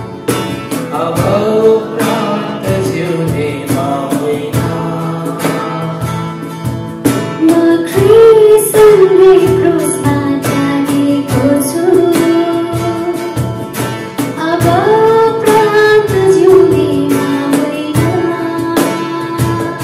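Nepali Christian worship song performed live: a strummed acoustic guitar accompanies a woman singing. Her held, sliding notes come in most strongly about a third of the way through.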